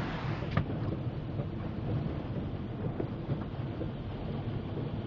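A GMC Yukon driving through floodwater over the road, heard from inside the cabin: a sheet of water hissing against the windshield ends with a thud about half a second in, then a steady low rumble of tyres and engine through the water.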